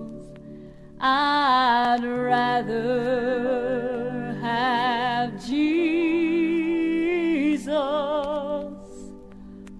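Slow gospel music: a melody of long held notes with vibrato over soft accompaniment. It is quiet for the first second, and it drops quiet again for about the last second.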